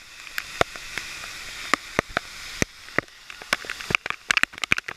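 Waterfall rushing as a steady hiss, with many sharp clicks of water drops and spray striking close by throughout.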